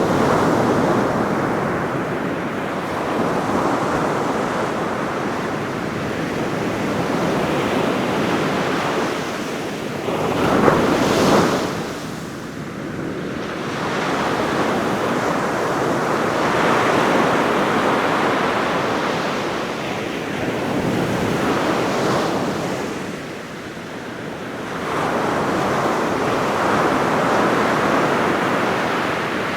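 Ocean surf breaking on a beach: a steady wash of waves that swells and eases every few seconds, with one louder wave crashing about a third of the way in.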